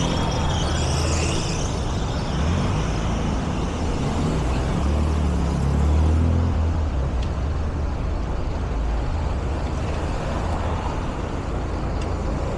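Steady street traffic noise with the low rumble of passing engines, swelling about six seconds in.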